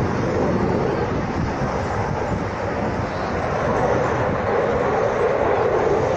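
Jet noise from a Belgian F-16A MLU fighter's single afterburning turbofan, heard as a steady rushing sound from the aircraft some distance away, growing louder near the end.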